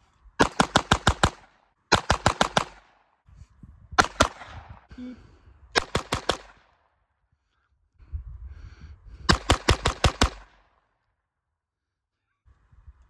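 Taurus TX22 Compact .22 LR semi-automatic pistol fired unsuppressed in five quick strings. Most strings are five or six shots fired in under a second; one is shorter, with two or three shots.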